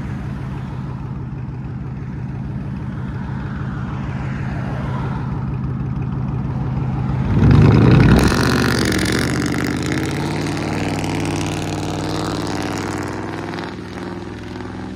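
2004 Ford F-150's 5.4-litre Triton V8 on a true dual exhaust with high-flow cats, idling with a deep burble, then revving hard about seven and a half seconds in as the truck pulls away. The exhaust note then changes pitch and fades as it drives off.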